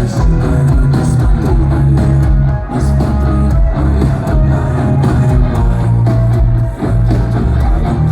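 Rock band playing live: guitars over a heavy bass line, loud and continuous.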